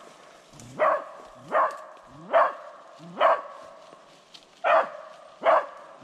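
Beagle barking at a rabbit holed up in a log. Six sharp barks come roughly three-quarters of a second apart, with a short pause midway.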